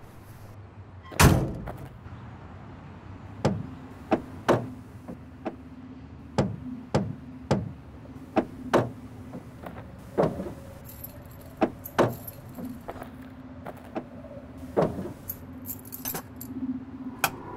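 A heavy thump about a second in, then a bunch of keys jangling and clicking in someone's hands, in irregular sharp clicks over a faint steady low hum.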